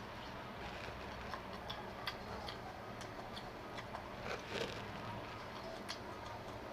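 A person eating close to the microphone: chewing with many small, irregular wet clicks and a few louder smacks about four seconds in.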